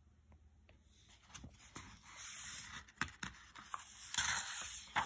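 Faint paper rustling with a few light clicks and taps: a picture book's page being handled and turned.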